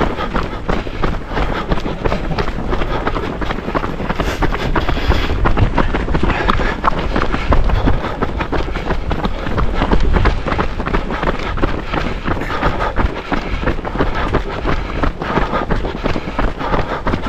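Running footsteps on a road with wind buffeting the microphone.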